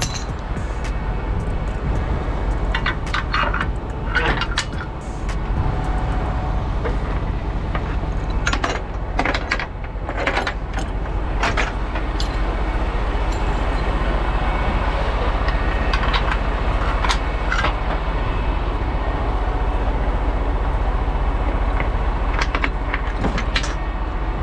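Western Star truck's diesel engine running steadily at idle, with scattered sharp metal clinks and rattles from chains and hooks on the car-hauler trailer.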